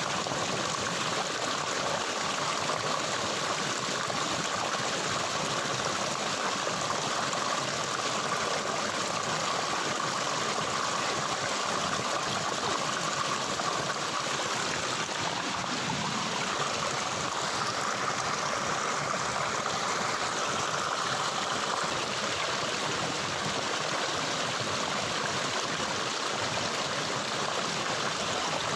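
Flowing water of a stream, a steady even rush with no breaks.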